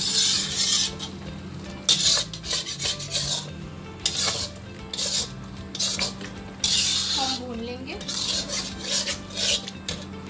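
Slotted metal spatula scraping and stirring thick mutton-and-yogurt masala around a karahi wok, in about five rasping strokes of a second or so each.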